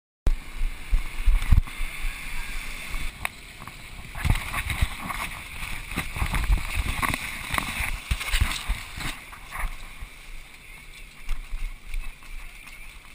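Runners splashing and sloshing through muddy water on a wet plastic slide and a shallow mud pit, with irregular heavy thumps and knocks on the microphone throughout.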